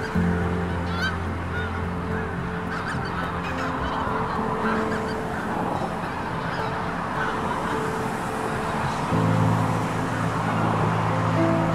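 A flock of wild geese honking, many calls overlapping without a break. Soft background music with long held low notes plays underneath.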